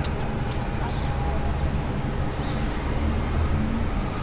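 Steady city street traffic noise: a constant low rumble of vehicles, with a couple of faint short ticks in the first second.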